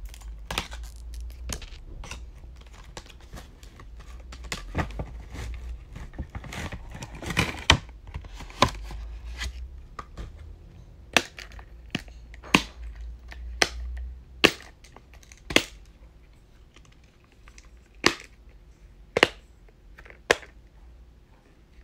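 Packaging being handled and torn open, with crinkling and a run of sharp clicks and snaps; from about halfway through, single sharp snaps come roughly once a second.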